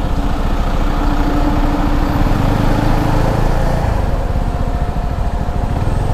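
CFMoto 250NK motorcycle's single-cylinder engine running while the bike rides through traffic, its firing pulses steady with the engine note shifting briefly around the middle.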